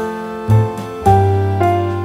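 Slow, sad instrumental music with piano-like chords; new chords are struck twice, each fading away after it sounds.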